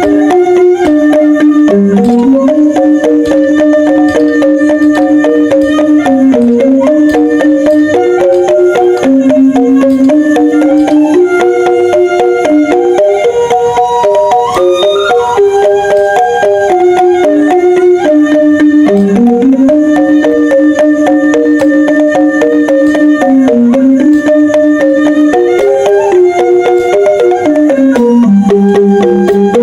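Background music: a melody of held, stepping notes over a quick, steady percussion pattern.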